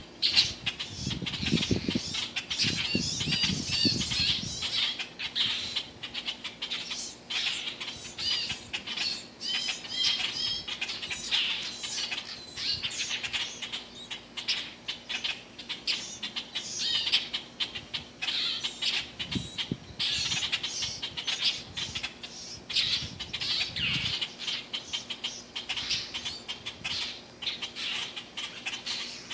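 A baby bird squawking over and over in rapid, high-pitched calls, with a few low, muffled sounds near the start and again about two-thirds through.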